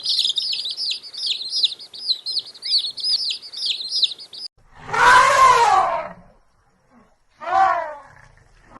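A small bird chirping in quick repeated high notes for about four and a half seconds, stopping abruptly. Then comes a loud animal call of about a second that rises and falls in pitch, and a shorter one near the end.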